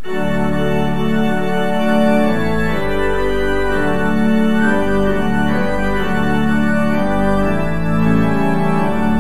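Organ playing slow, sustained chords, with a deep bass line coming in about two and a half seconds in.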